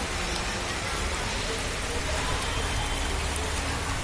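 Rain falling steadily, an even hiss with a low rumble beneath it.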